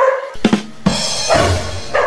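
Background music with a drum beat, in a short repeating loop.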